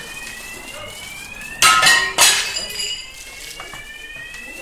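Window glass of a burning building cracking and crashing out twice in quick succession about a second and a half in, with a tinkle of falling shards after. Behind it an alarm sounds in repeated rising sweeps.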